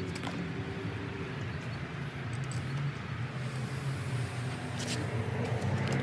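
A motor vehicle engine running steadily nearby, a low hum, with a few light clicks scattered through.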